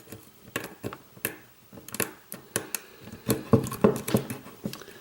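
Irregular small metallic clicks and taps of a hook pick working the pin tumblers of a lock cylinder held under tension from a tension wrench, growing denser and louder about three seconds in.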